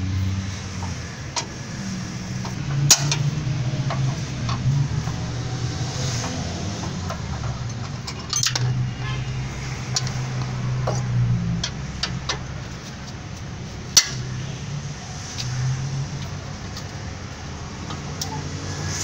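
Metal hand tools, a T-handle socket wrench and steel rods, clicking and clinking against a car's front bumper bracket as its bolts are worked loose, with two sharp metallic clinks about 3 and 14 seconds in. A steady low vehicle rumble runs underneath.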